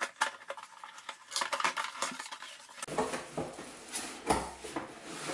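Packing tape being slit and a cardboard shipping box being opened: a run of quick scratches and clicks at the taped top, then cardboard flaps and paper rustling, with a dull thump about four seconds in.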